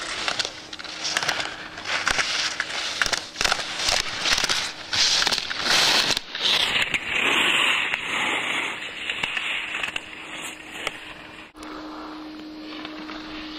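Slalom skis carving and scraping across hard snow in uneven bursts, one with each turn, with sharp clacks as plastic slalom gates are knocked aside. Near the end it drops to a quieter, steady hum.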